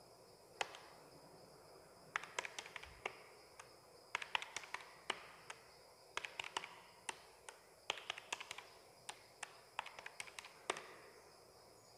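Keys of a handheld electronic calculator being pressed: short sharp clicks in quick irregular runs with brief pauses, as a column of figures is keyed in and added up.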